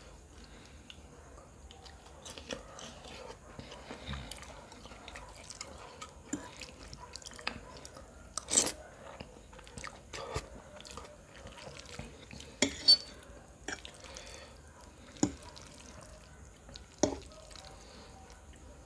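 Close-miked mouth sounds of a man eating spicy noodles: soft wet chewing and small clicks, broken by a handful of sharp, loud smacks or slurps a second or two apart in the second half.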